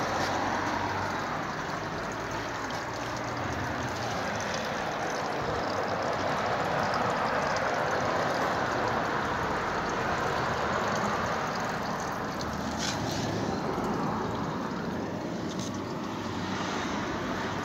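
Steady rushing background noise that swells and fades slowly, with a few faint clicks about thirteen seconds in.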